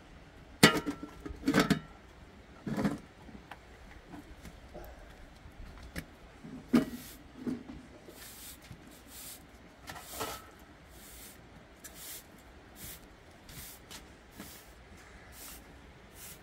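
Household handling noises: a few sharp knocks and clatters, the loudest about half a second in, with more about 7 and 10 seconds in. From about 8 seconds on comes a run of soft, even swishes, about two a second.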